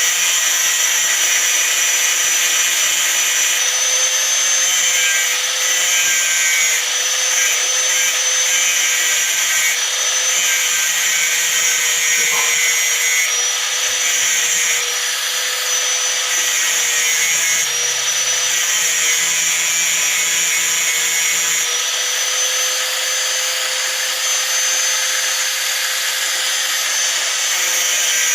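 Hand-held angle grinder running steadily at one constant pitch, grinding a rusty steel nail down into a flat bar.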